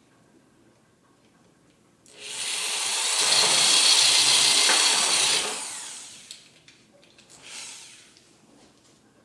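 Corded electric drill with a hole saw cutting a 3/4-inch hole through PVC pipe: it starts about two seconds in, cuts for about three seconds and winds down, then gives a short second burst near the end.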